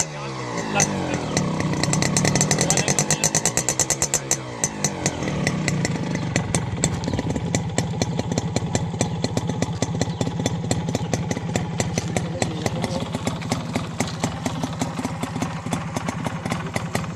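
Honda H100S motorcycle's two-stroke single-cylinder engine revving up and down in the first few seconds, then settling to a steady idle with a fast, even run of exhaust pulses.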